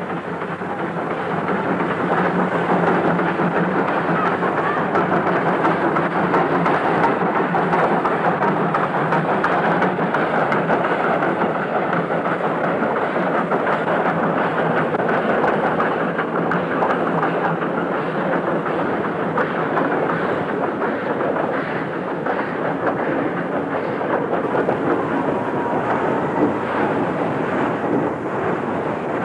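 Steam locomotive working under steam: a steady, dense rush of exhaust and escaping steam, with no separate beats standing out.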